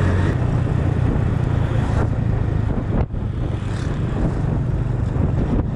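Motorcycle engine running on the move, its steady low note under wind rushing over the microphone, with a short dip in loudness about three seconds in.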